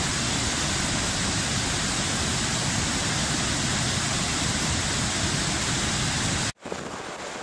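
River in spate rushing over rocks in white-water rapids, a steady, loud noise of running water. Near the end it cuts off abruptly to a quieter wash of wind and surf.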